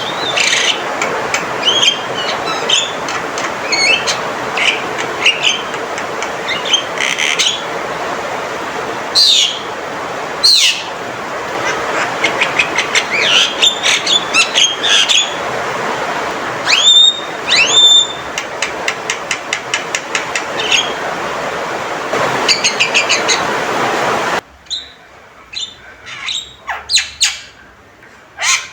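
Male Javan myna calling loudly in a varied stream: harsh notes, rapid rattling runs of clicks and sharp sweeping whistles, over a steady hiss. The hiss drops away near the end, leaving the calls clear.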